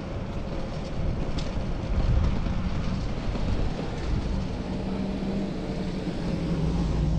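Wind rushing over a bike-mounted action camera's microphone, with the low rumble of road traffic; a steady vehicle hum comes in about four seconds in.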